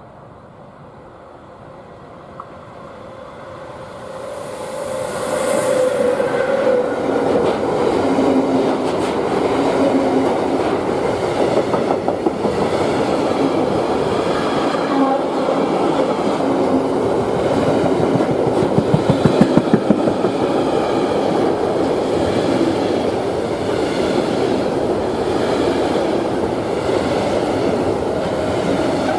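Freight train approaching and passing close by, its wheels clicking over the rail joints. It builds from faint to loud within the first six seconds and stays loud, with a run of heavier rhythmic knocks about two-thirds of the way through.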